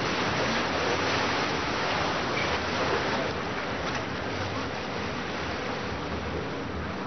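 Moving canal tour boat: a steady rush of water and wind, with a low engine hum underneath, a little louder in the first few seconds.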